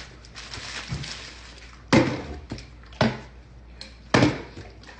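A run of sharp knocks: three loud ones about a second apart, with smaller clicks and rustling between them.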